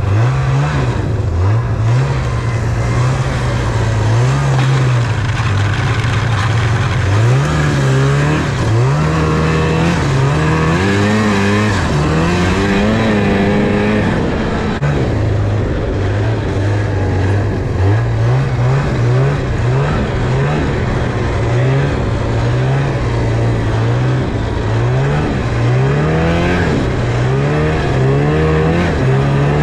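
Snowmobile's two-stroke engine under throttle while riding, its pitch climbing and falling again and again as the throttle is opened and eased off; it drops back about halfway through, then climbs again.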